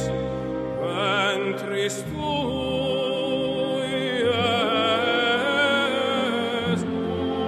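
Classical music: a solo operatic voice singing long held notes with wide vibrato over a steady instrumental accompaniment.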